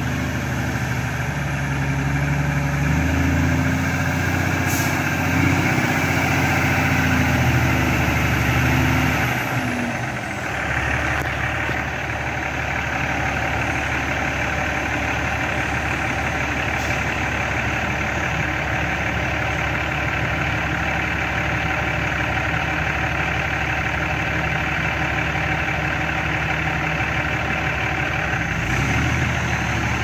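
Diesel engine of a loaded log truck working at low speed through mud, its pitch shifting over the first ten seconds or so, then running steady.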